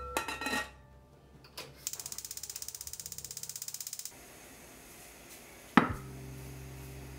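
Kitchenware handling: a glass pot lid clinks onto a steel pot near the start, followed by a run of rapid even clicks, about twelve a second, for about two seconds. Near the end, a glass bowl knocks sharply down onto a wooden cutting board, and a steady low hum follows.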